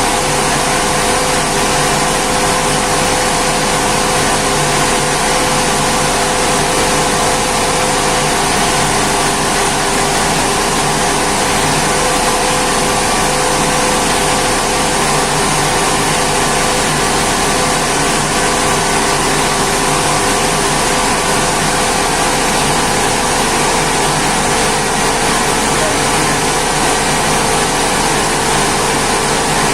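Rice mill machine running steadily: a loud, constant mechanical noise with a steady hum that does not change.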